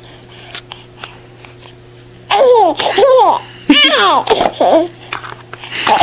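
Baby laughing in loud, high-pitched, squealing bursts that fall in pitch, starting a couple of seconds in and coming in repeated peals.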